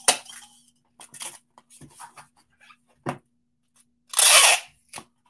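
Packing tape pulled off the roll and run around a shipping box: a loud tearing rip about four seconds in, with lighter rustles and taps of handling before it.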